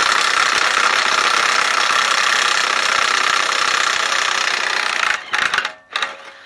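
Cordless impact wrench hammering on a tightly torqued wheel lug nut for about five seconds, then two short bursts near the end.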